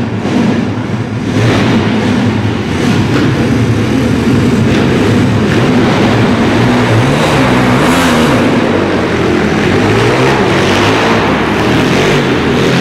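Pit bike engine revving, its pitch rising and falling again and again as the throttle is opened and eased off.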